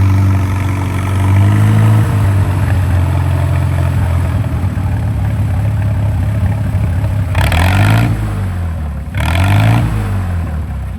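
Tractor engine running steadily, then revved up and back down twice in quick succession near the end.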